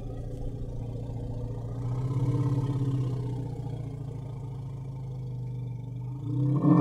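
Elephant giving a long, low, pulsing rumble that swells about two seconds in, then rises steeply in pitch into a short, louder call near the end that cuts off.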